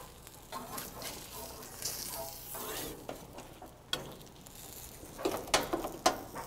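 Salmon fillets sizzling on a hot gas grill as a metal spatula lifts them off the grates, with scraping and a few sharp clicks and clinks of the spatula against the grill and a ceramic plate toward the end.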